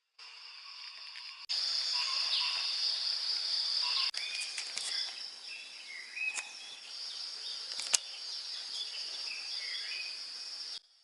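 Outdoor ambience of a steady, high insect drone with several birds chirping in short, quick calls over it. A single sharp click-like crack sounds about eight seconds in.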